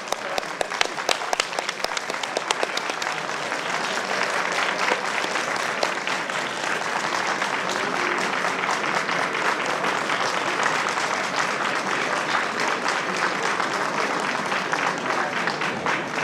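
Audience applauding, many hands clapping in a dense, steady patter, with single claps standing out more in the first few seconds.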